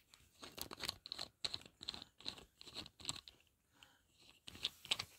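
Close crunching and scraping of handling, in a quick run of short strokes, about two or three a second.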